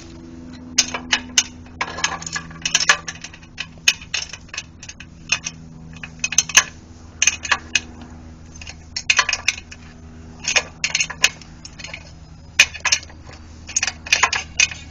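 Ratchet socket wrench clicking in short bursts, with metal-on-metal clinks, as a bolt on a small single-cylinder engine is worked loose.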